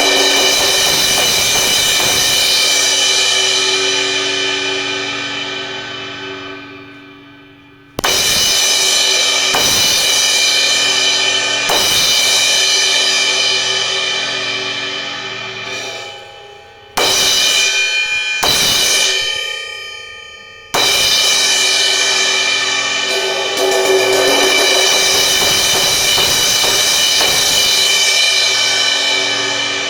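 An 18-inch Zildjian A Custom crash cymbal of B20 bronze, struck several times and left to ring with a long, high-pitched wash that slowly dies away. Around the middle it is cut off suddenly a few times and quickly struck again.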